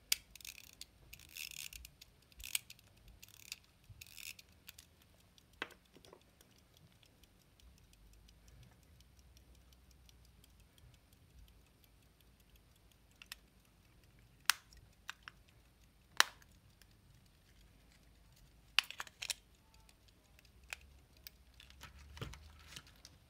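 Handling of antique pocket watches: a small hand tool scraping and clicking against the brass movement for the first few seconds, then sparse sharp metal clicks as the hinged cases are opened and shut. Near the end there is a low knock as a watch is set down in the tray.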